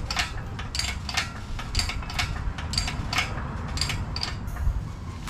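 Light metallic clicks and clinks, irregular at about two a second, over a steady low rumble.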